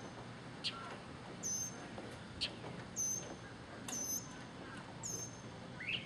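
Northern mockingbird singing: four short, high repeated phrases about a second apart, mixed with two quick falling whistles and a rising note near the end.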